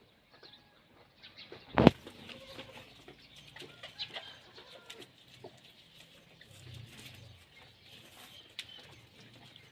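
Farmyard sounds: one sharp thump about two seconds in, then scattered small clicks and faint bird chirps.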